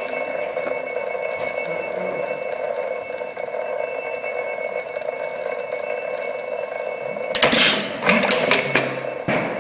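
Hydrogen-fuelled Otto & Langen free-piston atmospheric engine running: a steady mechanical noise from the spinning ratchet and gearing, with a faint high ringing. About seven and a half seconds in comes a loud clattering burst, then more clatter near the end, as a power cycle fires and the piston rod drives the one-way clutch.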